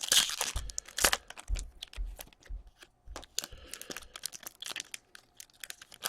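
Hockey trading cards and their pack wrapper being handled, with many short scrapes and clicks and two louder rustling bursts, one at the start and one about a second in.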